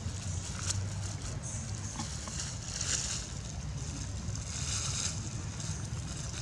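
Thin clear plastic bag crinkling and rustling in bursts as a young macaque pulls at it and mouths it, over a steady low rumble.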